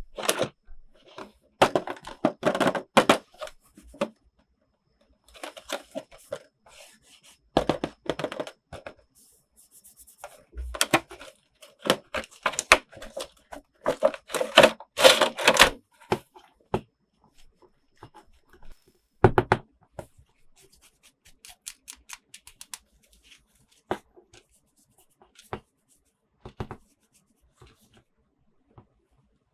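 Toy packaging being opened and handled: bursts of crinkling and tearing, with clicks and taps of small plastic pieces. The handling is busiest in the first half and thins to scattered single clicks near the end.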